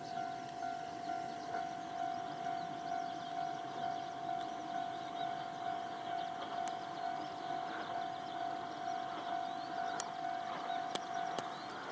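Railway level-crossing warning bell ringing: one steady tone pulsing evenly about twice a second as a train approaches, stopping just before the end. A few faint sharp clicks come in the last couple of seconds.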